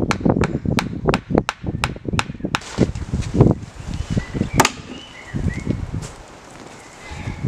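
A quick run of sharp chopping strikes on wood, about four a second, stopping about two and a half seconds in, followed by two single knocks. A few faint bird chirps come near the middle.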